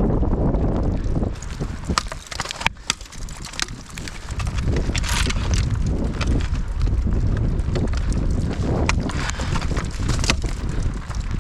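Wind buffeting the microphone, with sharp single strikes every second or few, typical of ice axe picks and crampon points being driven into waterfall ice while climbing.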